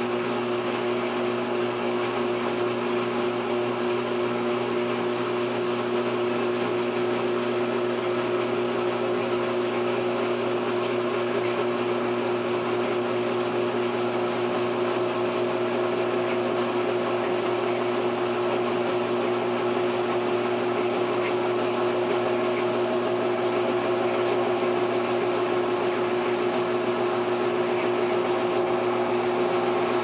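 GE GTW465 top-load washer spinning its stainless basket in the spin cycle, a belt-driven drive making a steady mechanical hum. From about halfway through, one tone in it rises slowly as the basket gathers speed toward full high-speed spin.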